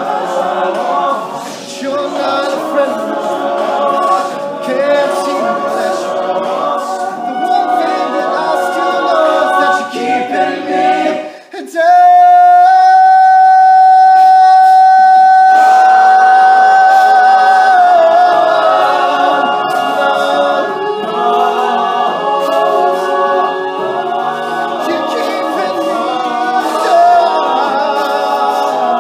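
Male a cappella group singing, a lead voice over close backing harmonies. About eleven seconds in the sound dips briefly, then one voice holds a long high note for about four seconds, the loudest part, wavering as it ends before the full group comes back in.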